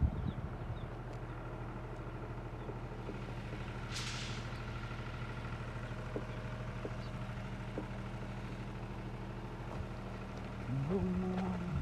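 An engine running steadily at idle, with a short burst of hissing air about four seconds in and the engine note rising and growing louder near the end.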